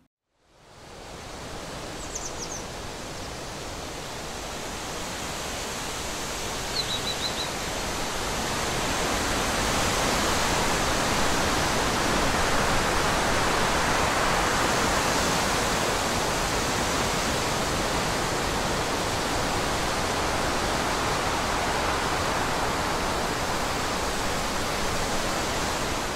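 Steady rushing of running water, fading in at the start and growing louder over the first ten seconds. Two brief bird chirps come through, about two and seven seconds in.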